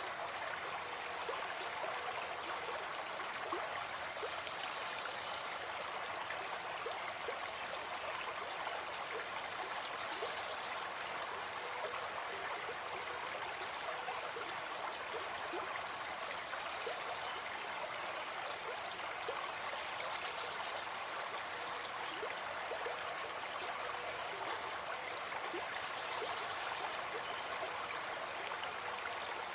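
Forest stream running steadily over stones, an even rush of water with small splashes and gurgles throughout.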